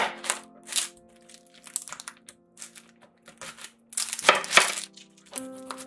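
A kitchen knife chops through whole onions onto a cutting board, with the papery onion skin crackling and tearing. There are a few sharp cuts at the start and a louder pair about four seconds in, over background music.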